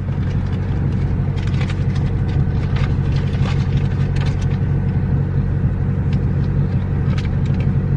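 Car engine idling steadily, heard from inside the cabin as a constant low hum, with scattered light clicks over it.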